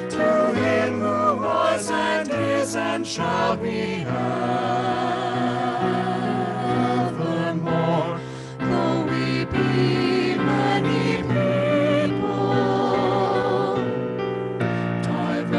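Small vocal ensemble of men and women singing a sacred song together in harmony, with long held notes sung with vibrato.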